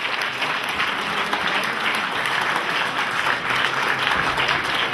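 Audience applauding, steady clapping from many hands.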